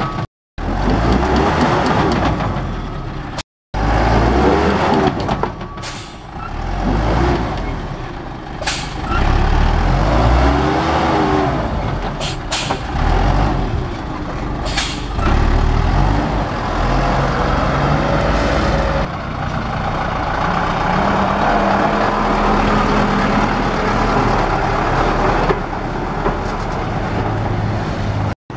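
Dump truck's diesel engine revving and straining, its pitch rising and falling, as the rear wheel spins in loose soil. A few short sharp clicks or hisses cut through.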